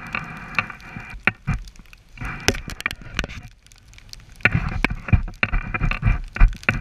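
Skis running over snow: a continuous rough hiss and rumble with frequent short knocks. It eases off about three seconds in, then picks up again louder.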